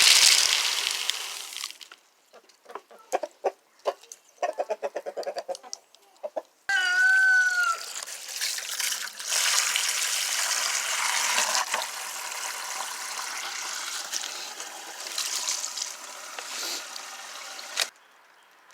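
Chickens clucking, with short scattered clucks and a brief pitched call, over a steady hiss that starts and stops abruptly.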